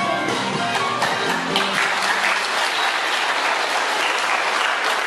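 Dance music ends about a second in, and an audience applauds, the clapping swelling and then holding steady.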